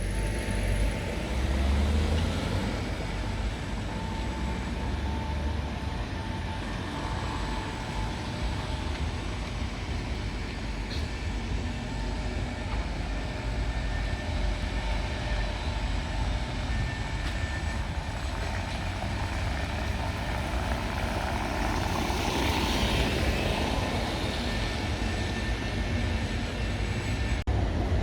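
Steady rumble of city street traffic, with vehicles passing and growing louder near the end.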